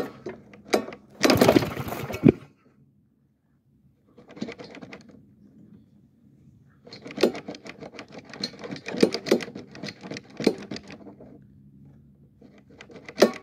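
Metal lawn mower parts clicking, scraping and rattling as a stiff part is forced into place by hand. A dense scrape about a second in, then a long run of rapid clattering from about seven to eleven seconds.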